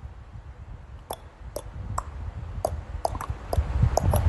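A series of light, sharp clicks at irregular intervals, roughly two or three a second, over a low background rumble.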